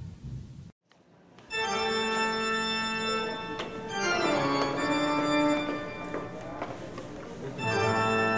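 Background organ music: after a short gap it comes in with long held chords, a gliding phrase in the middle and a new chord near the end.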